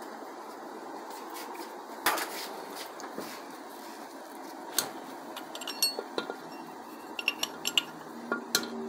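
Small steel valve-train parts of a diesel cylinder head clinking and tapping against the head as they are handled: sharp, ringing metallic clinks, a few at first and then in quick clusters through the second half, over a steady hiss.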